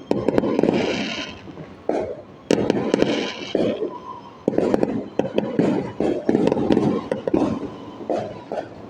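Fireworks going off in quick succession: repeated loud bangs, each followed by a rolling boom, with a crackling hiss about one and three seconds in.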